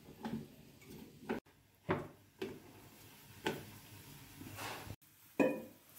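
Wooden rolling pin knocking and rolling on a rolling board as thepla dough is rolled out: about seven short, irregular knocks, broken twice by brief dead silences.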